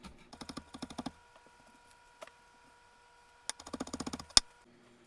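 Kitchen knife chopping green onions on a cutting board: two quick runs of rapid chops about a second long each, with a single chop between them, the second run ending in one hard knock.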